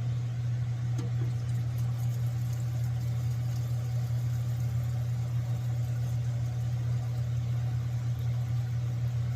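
A steady low mechanical hum, with a few faint clicks about a second in.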